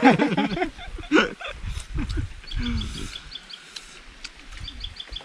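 A rapid, even series of short high chirps, several a second, from a small animal, continuing throughout. A short burst of voice at the start is the loudest sound, with a low rumble in the middle.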